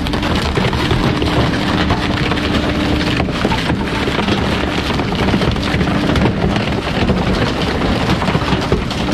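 Bulk waste truck running: a steady rushing noise with a faint engine hum underneath.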